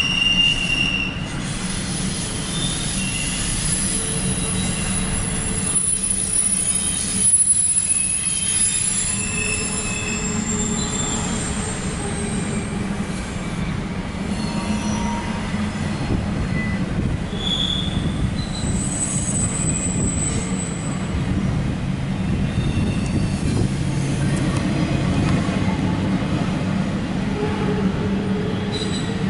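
A CSX intermodal freight train of empty well cars rolling by with a steady low rumble. Its wheels squeal in thin, high tones that come and go, shifting in pitch, heard from inside a car.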